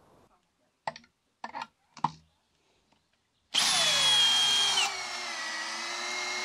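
Two Makita cordless driver drills, an 18V DDF484Z and a 12V DF333DZ, in second gear, start together about three and a half seconds in, their motors whining and dropping in pitch as they drive screws into wood. The 18V drill finishes about a second later and cuts off, while the 12V runs on steadily under load. A few short clicks come before the drills start.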